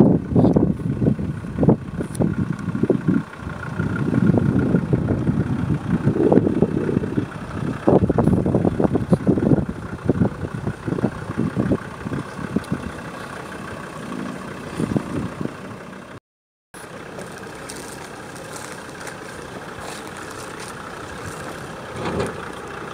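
Off-road 4x4's engine running under load, surging loud and uneven through the first ten seconds or so, then running quieter and steadier. The sound drops out completely for a moment about sixteen seconds in.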